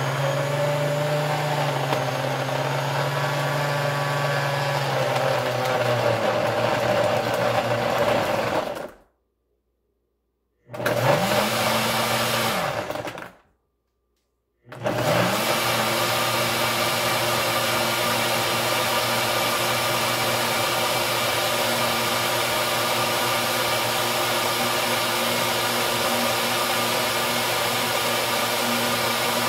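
Nutribullet Combo full-size blender running its Extract program on a thick smoothie with ice and raw peanuts. The motor runs for about nine seconds, cuts out, runs a short two-second pulse and cuts out again, then runs steadily at high speed. The pulses pull the ingredients down onto the blade, and the high-speed run purées them.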